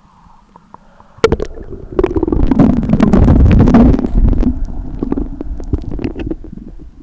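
Muffled underwater rumbling and bubbling with many small clicks as the camera goes under. It starts suddenly about a second in, is loudest in the middle and fades toward the end.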